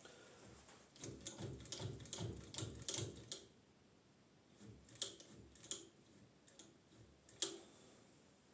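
Light clicks and knocks of tools and metal parts being handled at a lathe, a quick run for a couple of seconds followed by a few separate sharp clicks; the lathe is not running.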